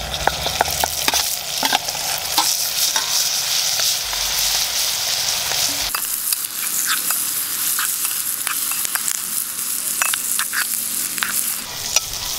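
Mutton liver pieces frying with onions and green chillies in a metal pot, sizzling steadily, while a spoon stirs them with scattered clicks and scrapes against the pot.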